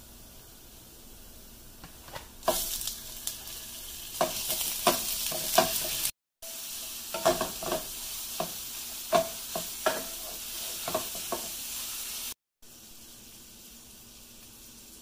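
Raw ground beef sizzling in hot oil with chopped onion in a non-stick frying pan while a wooden spatula breaks it up and stirs it, with many sharp taps and scrapes of the spatula against the pan. The loud sizzle starts about two and a half seconds in, drops out briefly near the middle, and falls to a faint hiss near the end.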